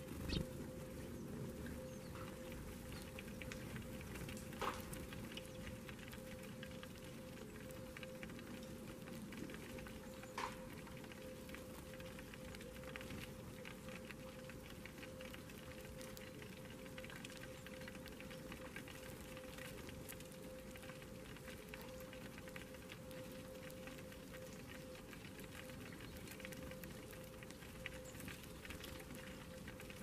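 Flock of Eurasian tree sparrows pecking seeds off a feeding tray: many faint, quick ticks, with a few louder knocks in the first ten seconds, over a steady low hum.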